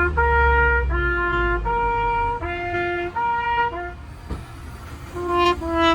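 Two-tone police siren alternating between a low and a high horn-like note, each held for under a second. It fades around four seconds in, then comes back near the end.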